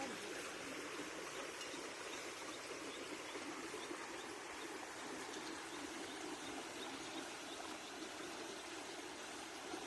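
Steady, even rushing noise, like flowing water.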